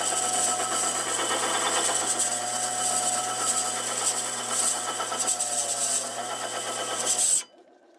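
Small benchtop lathe-mill-drill running, its cutting tool facing a rusty Toyota Camry cast-iron brake rotor: a steady motor hum under a gritty, hissing scrape of the cut. It cuts off abruptly near the end.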